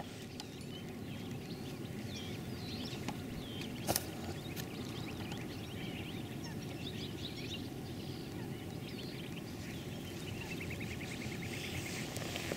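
Small birds chirping over a steady low background noise. A single sharp click comes about four seconds in, and a fast run of ticks near the end.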